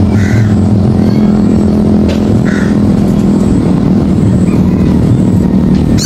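Motor traffic on an adjoining main road: engines running steadily, a loud continuous low hum.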